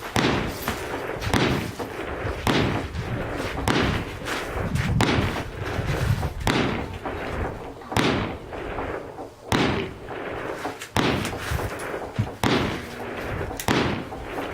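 Gunfire at a shooting range: a steady run of single shots, roughly one a second at uneven spacing, each a sharp crack trailing off in a short echo.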